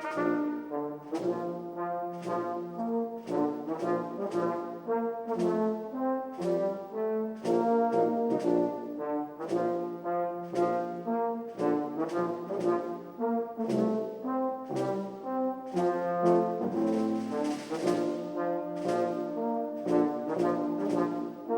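Church orchestra with brass to the fore playing an instrumental hymn arrangement, notes changing in a steady march-like rhythm.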